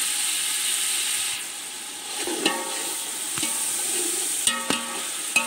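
Onion-tomato masala frying in oil in a metal pot with a steady sizzle, which drops back after about a second and a half. A perforated metal skimmer stirs it, knocking against the pot several times from about two seconds in with short metallic rings.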